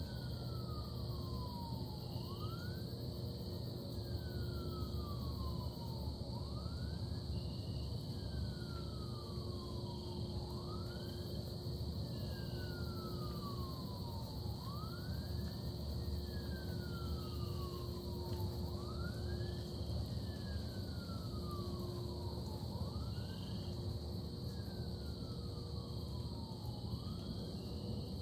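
A siren wailing steadily, its pitch rising quickly and then falling slowly, about once every four seconds, over a steady low rumble and hum.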